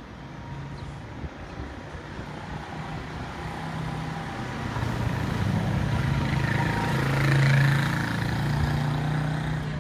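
A motor vehicle's engine and tyres approaching and passing close by, growing louder to a peak about seven and a half seconds in, then easing off.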